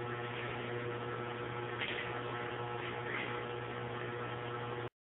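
Steady low electrical hum with a few faint steady tones above it, which cuts off abruptly to total silence about five seconds in.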